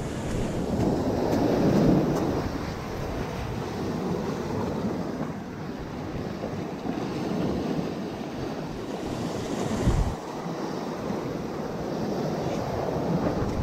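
Ocean surf washing in over rocks and sand, a continuous rush of foaming water that swells loudest about two seconds in.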